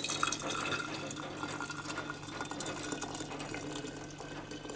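Hot spiced milk tea pouring steadily from a saucepan through a plastic tea strainer into a ceramic teapot, starting right at the beginning.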